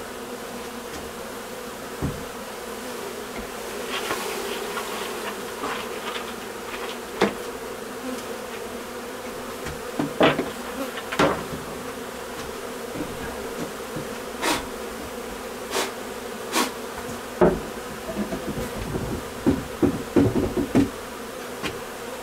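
Swarm of honey bees buzzing steadily around a hive box, with scattered sharp knocks and taps and a quick run of them near the end.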